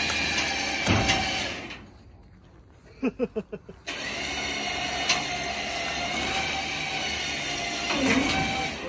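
A small motor running steadily. It cuts out about two seconds in, a few short squeaks come during the pause, and it starts again about two seconds later.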